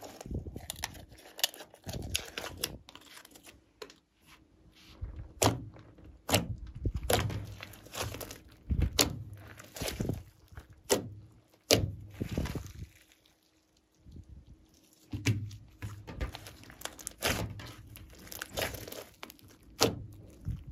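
A large mass of glossy slime being folded and pressed by hand, making irregular sticky pops and clicks with soft thuds, with a brief pause about two thirds of the way through.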